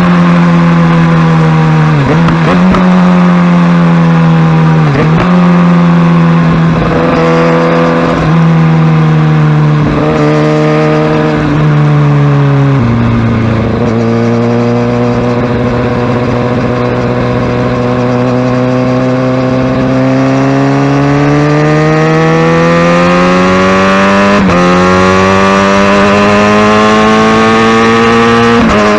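Kawasaki Ninja ZX-6R inline-four engine running under riding load, its note dipping briefly several times, dropping in pitch about a third of the way through, then rising steadily as the bike accelerates.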